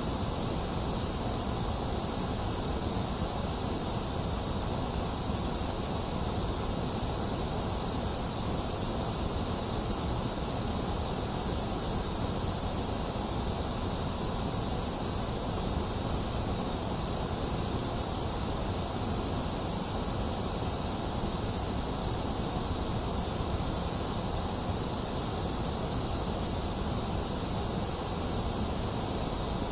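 A box fan running mixed with falling rain, making a steady, unchanging hiss.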